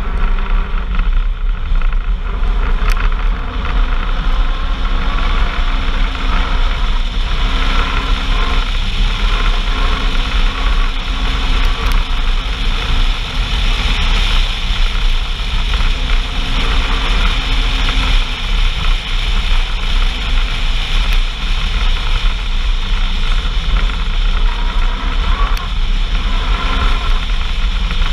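A vehicle driving along: its engine runs steadily under a loud, even noise of wind and travel with a heavy low rumble, and the engine note fades in and out now and then.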